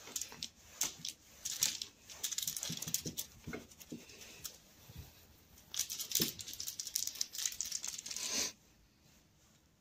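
A cat play-fighting, its claws scratching and scrabbling with rustling in irregular bursts of scraping and clicks, which stop about eight and a half seconds in.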